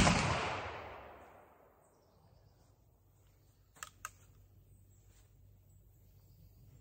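The report of a black-powder muzzleloading rifle, fired with a 50-grain charge, echoing through the woods and dying away over about a second and a half. About four seconds in, two sharp clicks as the rifle is handled on the bench.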